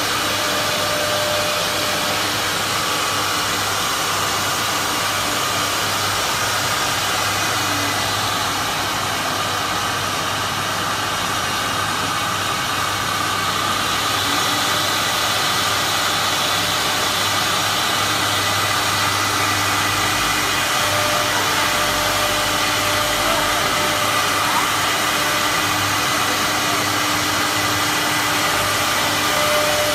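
Multi-spindle CNC wood router cutting a wooden door panel: the spindles and machine run with a loud, steady rushing noise and a few faint steady tones.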